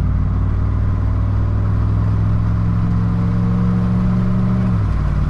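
The Hemi V8 of a 2014 Ram 1500 pulling under acceleration, with a steady drone that rises slightly in pitch and then drops near the end as the eight-speed automatic shifts up.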